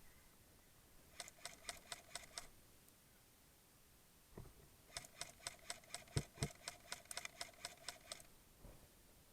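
Airsoft gun firing two strings of shots, sharp clicks about six a second with a faint whine under them: a short string about a second in and a longer one of some twenty shots from about five to eight seconds in. A few dull thumps fall among the shots.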